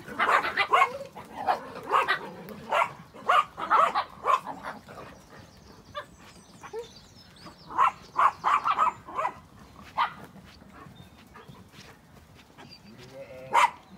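Small dogs barking in quick, short, repeated yaps among a moving flock of sheep. The barking comes in two spells, through the first few seconds and again about eight seconds in, with quieter gaps between.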